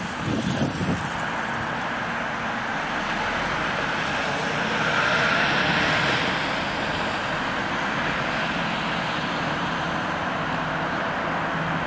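Steady city road-traffic noise, swelling briefly about halfway through as something passes, with a few light knocks in the first second.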